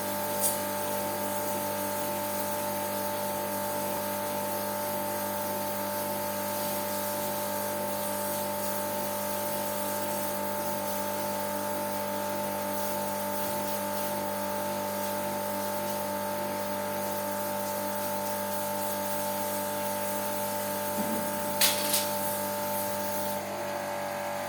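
High-pressure jet washer pump running steadily with a steady whine and water spray noise, as used to wash an air conditioner coil. There is a sharp click just after the start and another near the end, and the whine shifts slightly in pitch just before the end.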